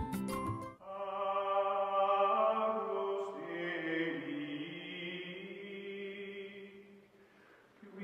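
Background music: long, held chant-like vocal notes in a drone, after a brief tail of clicking music in the first second, fading out near the end.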